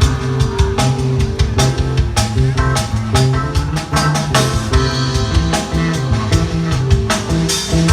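Loud rock-style music with drum kit, bass and guitar, played through a TW Audio T24N line-array PA speaker system during a sound check.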